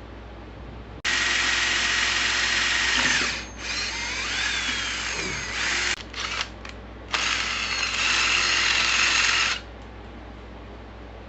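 Power drill running in bursts: a loud run of about two seconds, a softer stretch, a few short blips, then another run of about two and a half seconds, its whine shifting in pitch as the trigger is worked.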